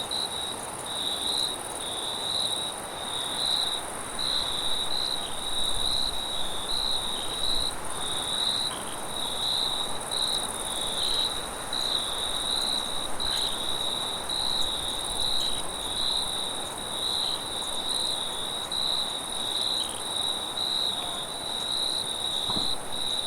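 Crickets chirping without pause, a high note in quick repeated pulses, with a second, higher insect drone, over a steady soft hiss of wind.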